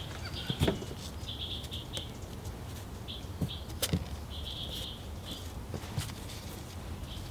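A few light taps and crinkles as gloved hands handle a paper towel on an engine cover, over a low steady hum and repeated short bird chirps. The loudest taps come about half a second in and again near four seconds.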